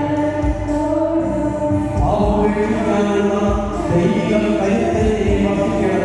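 Devotional music: a choir singing with sustained accompaniment over a low, regular beat.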